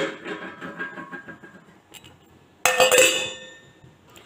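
Two metal clanks of kitchen utensils, each followed by a short fading ring: one right at the start, and a second about two and a half seconds in as a stainless-steel mixer-grinder jar is set down on the table.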